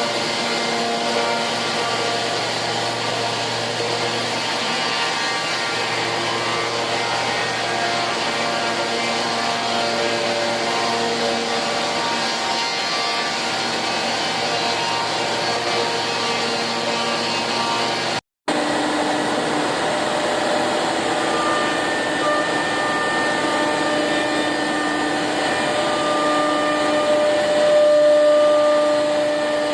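SCM Accord 20 CNC router running: a steady machine noise like a vacuum cleaner, with held tones from the electrospindle that shift pitch every second or two. The sound cuts out for a moment about eighteen seconds in and comes back on a different set of tones.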